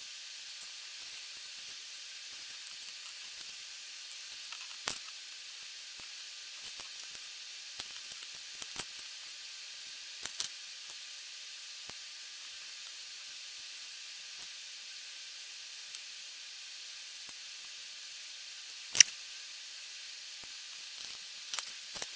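Sharp clicks and taps of small plastic Lego bricks and minifigure parts being handled and pressed together, scattered and irregular, with one loud click about three seconds before the end. A steady hiss underneath.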